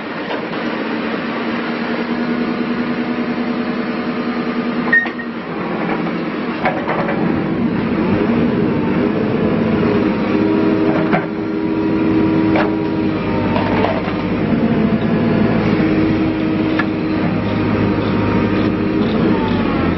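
Diesel engine of a 2012 JCB 3CX14 backhoe loader running, its note shifting up and down, with several sharp metallic clunks spread through.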